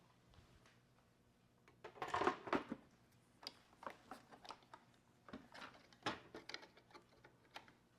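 Hands working on the parts of a touchscreen assembly: scattered clicks, knocks and handling noises of cables and plastic parts, the loudest just after two seconds in. A faint steady hum runs underneath.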